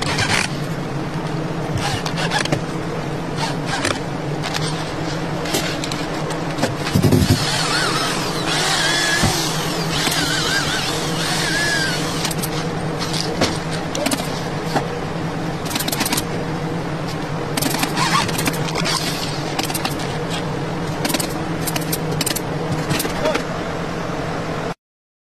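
Steady mechanical hum with many short clicks and knocks as tools and clamps are handled on a wooden chair frame. A voice is heard in the middle, and a brief cut to silence comes near the end.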